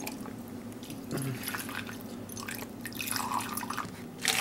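Liquid poured from a glass measuring cup into a plastic bottle, trickling and dripping in uneven spurts.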